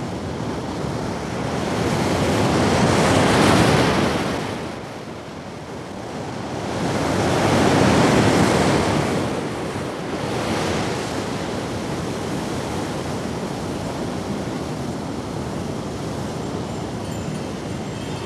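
Ocean surf breaking and washing up a sandy beach: two big waves swell and fall away, loudest about three and eight seconds in, then a smaller one, after which the surf settles into a steady wash.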